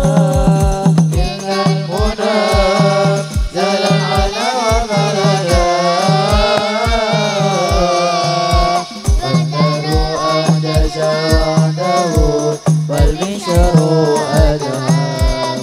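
Islamic devotional song (sholawat) sung by a group of male voices into microphones, over a steady beat of hand drums with deep strokes about two to three a second, amplified through stage loudspeakers. The beat and singing break off briefly partway through, then resume.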